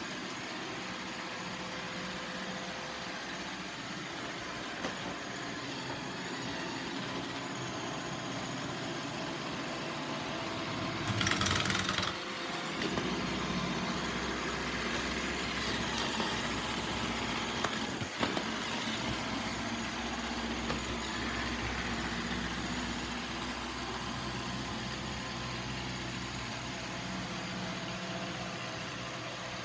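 iRobot Roomba 675 robot vacuum running, a steady hum of its motors and brushes. About eleven seconds in there is a louder rushing noise for about a second, and a few sharp knocks.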